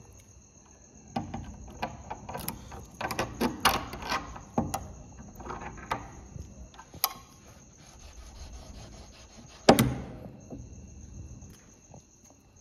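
Clicks, rattles and knocks of something small being handled against a wooden door, thick for the first few seconds and then sparse, with one loud knock about ten seconds in. A steady high cricket chirr runs underneath.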